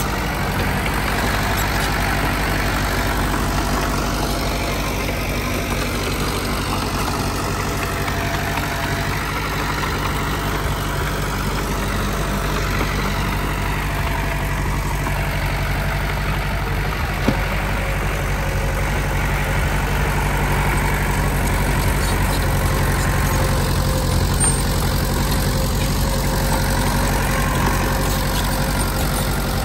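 Heavy diesel engine of earthmoving construction machinery running steadily, with one brief knock about seventeen seconds in.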